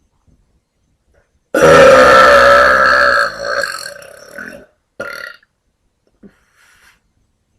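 A woman's long, loud burp, starting about a second and a half in, held for about two seconds and then trailing off. A short sound follows about a second later.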